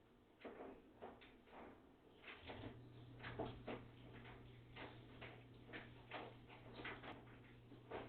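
Samsung front-load washer running a cycle: irregular soft knocks and clicks, about two a second, from the turning drum and load. A steady low motor hum comes in about two and a half seconds in.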